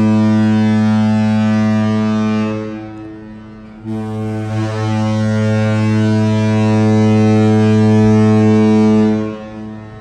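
Cruise ship's horn sounding two long, deep blasts. The first is already going and dies away about two and a half seconds in; the second starts about a second later and holds for about five seconds. It is the departure signal as the ship leaves port.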